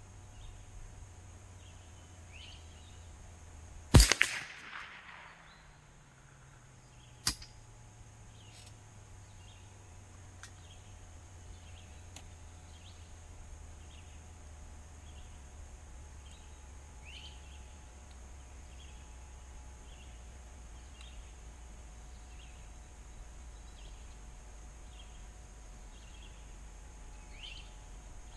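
A single shot from a Savage A22 semi-automatic .22 LR rifle about four seconds in, with a short echo, and a second, quieter sharp crack about three seconds later. Faint high chirps come about once a second throughout, over a low steady hum.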